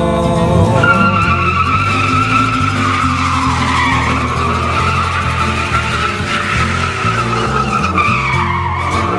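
Ram pickup's Hemi V8 revving as the rear tires spin in a burnout. A steady tire squeal starts about a second in and wavers in pitch.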